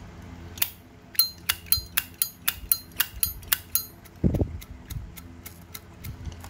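Solid-brass Zippo lighter lid snapped open and shut repeatedly: about a dozen sharp, ringing metal clicks, about four a second, followed by a single dull thump.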